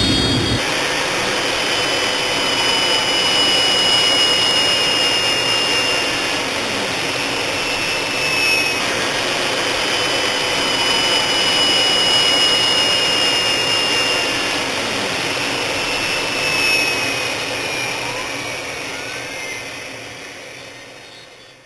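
Jet airliner engines running: a steady rushing noise with high whining tones, and a lower whine that slides down in pitch every few seconds. It fades out over the last few seconds.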